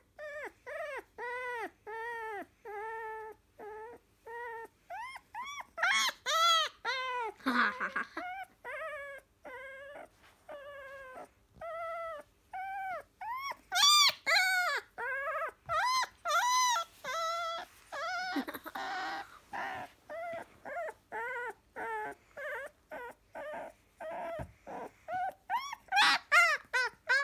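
A three-week-old black Labrador retriever puppy whines and whimpers over and over, about two short rising-and-falling cries a second, some of them louder and shriller. It is protesting at being held on its back.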